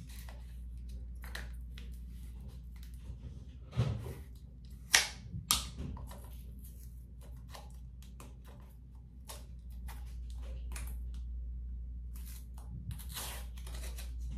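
Hands handling a plastic face-cream jar and its packaging: a run of small clicks and rustles, with three sharper clicks between about four and six seconds in and a longer rustle near the end.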